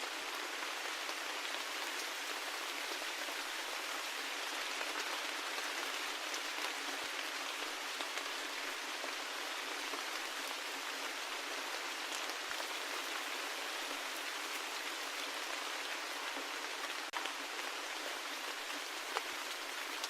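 Steady rain falling: an even hiss with scattered ticks of individual drops, and a couple of sharper drop hits near the end.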